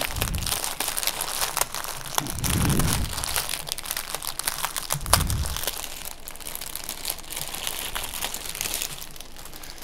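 Plastic packaging crinkling and rustling as it is handled, with two dull thuds about two and a half and five seconds in.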